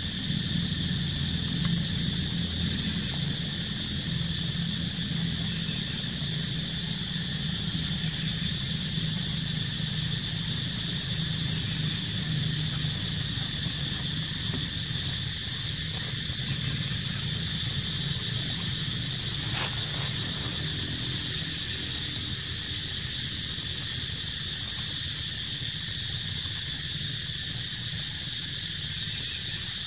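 Steady outdoor insect chorus, a continuous high-pitched buzz that holds unchanged, over a low steady rumble, with one faint click about two-thirds through.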